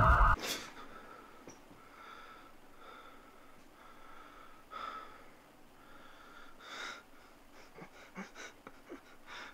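A loud shrill electronic alarm-like tone cuts off abruptly right at the start. Then comes a man's quiet, shaky breathing, about one breath a second, turning to quicker short gasps and sniffs near the end.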